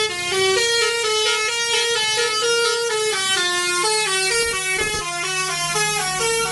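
Musical vehicle horn playing a tune of quick stepped notes, like a snake charmer's melody.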